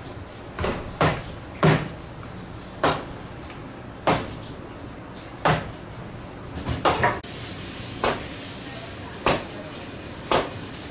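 Large knife chopping crosswise into a big Spanish mackerel on a plastic cutting board: a sharp knock about once a second as the blade strikes through to the board.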